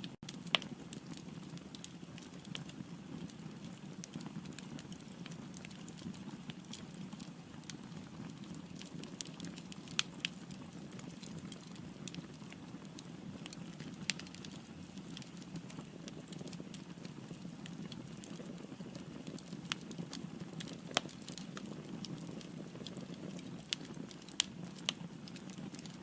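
Firewood burning in a fireplace: a steady low rush of flames with irregular sharp crackles and pops from the burning wood.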